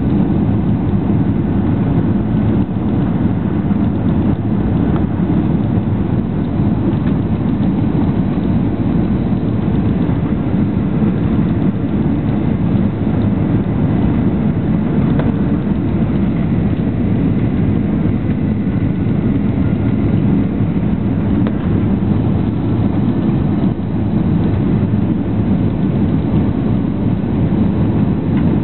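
Steady, loud cabin noise of a Boeing 737 on final approach, heard from a seat over the wing: a deep, even rumble of the engines and the air rushing past the fuselage, with no single knock or impact standing out.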